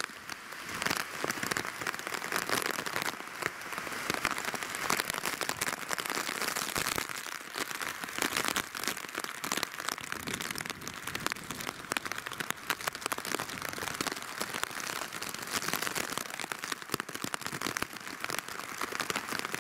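Tropical-storm rain falling steadily and hard, a dense hiss full of close drops ticking and splattering.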